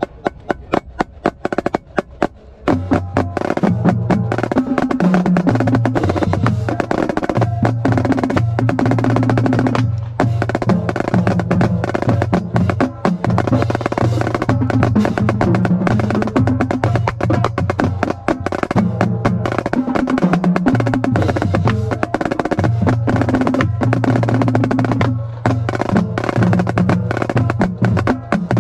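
Marching drumline: about two and a half seconds of evenly spaced sharp clicks, then a fast, dense cadence on marching snare drums over a lower drum part that moves between pitches.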